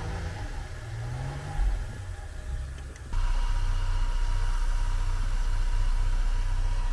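Jeep engine revving in repeated rising surges as the truck works in deep snow. About three seconds in it changes abruptly to an engine running steadily at an even pitch.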